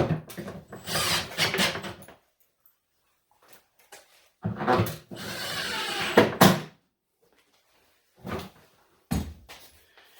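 Workshop handling sounds of wood and tools: knocks and clatter, a denser stretch of about two seconds in the middle, and a few sharp knocks near the end.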